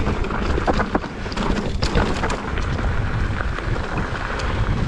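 Wind buffeting the microphone over the rattle and knocks of a mountain bike riding down a rough, rutted downhill trail.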